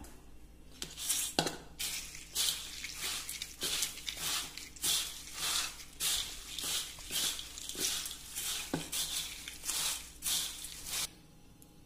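Dry, crunchy fried snack mixture of sev, boondi and peanuts being tossed by hand in a stainless steel bowl: repeated rustling, rattling strokes against the steel, a little under two a second, stopping near the end.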